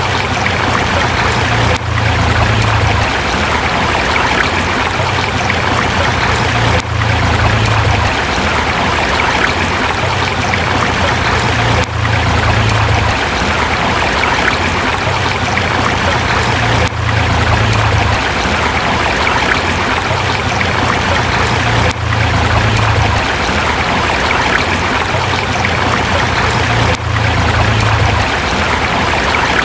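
Forest river flowing over rocks: a steady, dense rush of water, with a brief dip in level about every five seconds.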